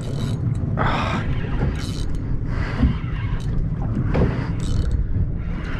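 Boat at sea: a steady low rumble with short rushes of noise about every second.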